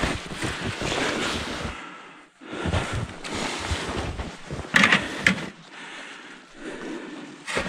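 Footsteps crunching through deep snow and spruce branches brushing against clothing as someone pushes through a thicket. There is a brief pause a little after two seconds, and a couple of sharper, louder rustles about five seconds in and near the end.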